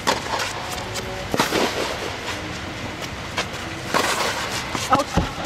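Tennis ball struck back and forth by rackets in a rally on a clay court, a few sharp pops one to three seconds apart, inside an air-supported tennis dome.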